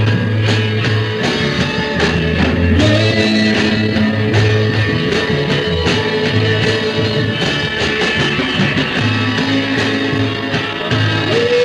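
Rock band music playing, with a new long held note coming in just before the end.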